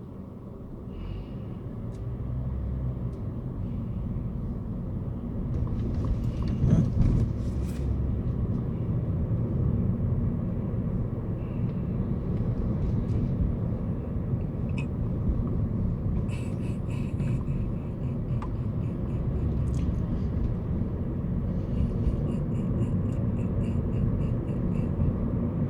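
Road and engine rumble of a moving car heard from inside the cabin, growing louder over the first few seconds as it gathers speed. There is a brief louder knock about seven seconds in, and a faint regular ticking in two stretches later on.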